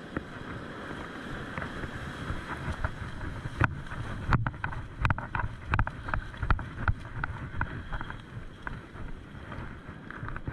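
Wind on the microphone over a steady surf rush. From about three and a half seconds in comes a run of quick, irregular clicks and knocks from the rod and reel as a hooked fish is reeled in.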